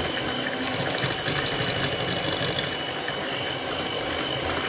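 Moulinex electric hand mixer running steadily, its twin beaters whisking eggs and sugar in a metal bowl.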